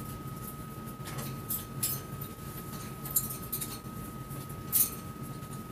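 Soft rustling and a few light, scattered clicks of handling as a baby sock is worked onto a silicone reborn doll's foot, over a faint steady high whine.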